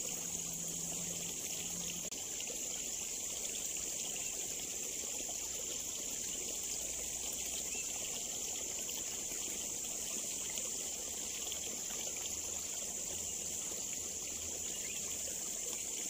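Steady outdoor ambience at a small ditch: water trickling, under an even, steady high-pitched hiss.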